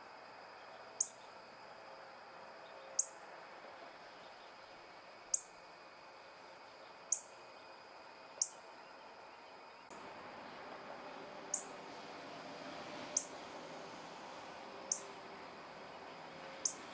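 Male northern cardinal giving sharp, high chip notes, each falling quickly in pitch, about one every one and a half to two seconds, nine in all.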